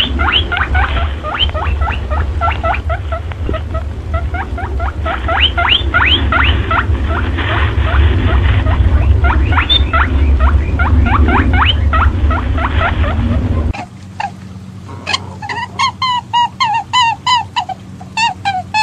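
Animal calls from a lure track sold as a perentie caller. A fast run of short, upward-sweeping squealing calls, several a second, plays over a heavy low rumble. It cuts off abruptly about fourteen seconds in, and a quieter, different call follows, repeated about three times a second.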